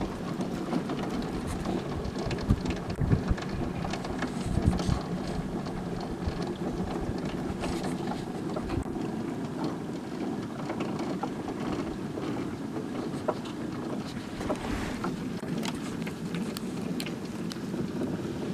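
Wind buffeting the microphone outdoors, a steady low rumble with strong gusts in the first few seconds, and faint scattered ticks over it.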